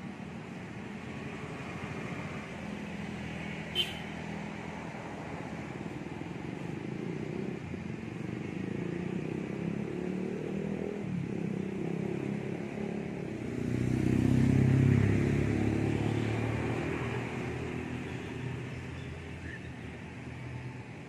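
Motor vehicle traffic running steadily, with one vehicle getting louder and passing close about two-thirds of the way through. A single sharp click about four seconds in.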